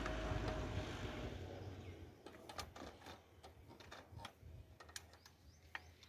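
A low engine hum fades out over the first two seconds. Then comes a scatter of small sharp clicks and knocks as a bipod's leg clamp is tightened on a GNSS rover pole and the metal legs are set.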